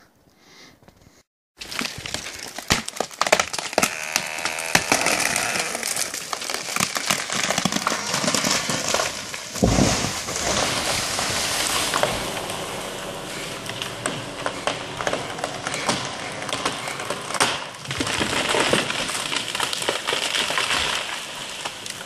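Wood and branches cracking and breaking in a dense, continuous crackle, cutting in suddenly after a short quiet spell. A heavy low thud comes about ten seconds in.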